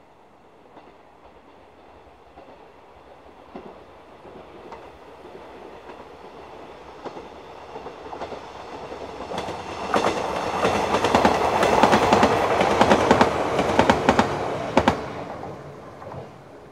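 A 115 series electric multiple-unit train approaching and passing. Its running sound grows steadily louder for about ten seconds, then a quick run of wheel clicks over the rail joints as the cars go by, and it fades quickly after about fifteen seconds.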